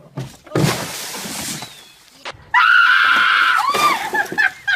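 A large bin of water dumped from a balcony crashes down and splashes over a person for about a second and a half. Then a woman lets out one long high scream, breaking into shrieks of laughter as water is poured over her head.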